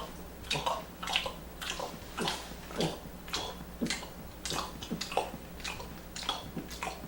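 Glossopharyngeal breathing: a quick run of soft, wet gulping clicks, about two a second, each a near-voiceless 'gup' as the tongue pumps a bolus of air past the throat and the lips close. The strokes stack air in the lungs on top of a full breath.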